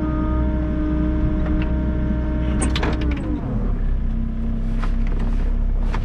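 Volvo EC60E mini excavator's diesel engine running under hydraulic load, its pitch dropping a little past halfway and settling lower. A few sharp clanks from the attachment come near the middle and toward the end.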